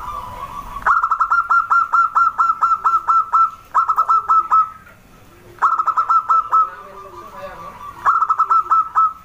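Zebra dove (perkutut) calling: four bursts of quick, evenly repeated notes, about eight a second, with softer low coos between the bursts.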